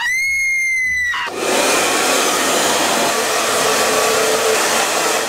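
A shrill, high-pitched squeal that rises sharply and holds for about a second. Then a handheld hair dryer starts up and blows steadily.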